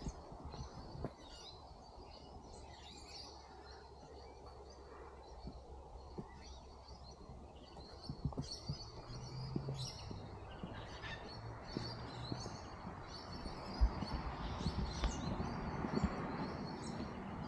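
Birds chirping and calling in open countryside over quiet background noise, which grows a little louder toward the end.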